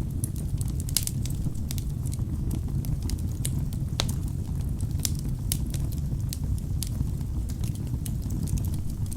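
Wood fire burning in a fireplace: a steady low rumble of flames with sharp, irregular crackles and pops from the logs.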